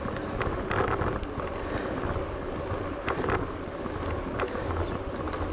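Wind buffeting the microphone of a bicycle-mounted camera over a steady low rumble from the bike rolling along a paved path, with a few light clicks.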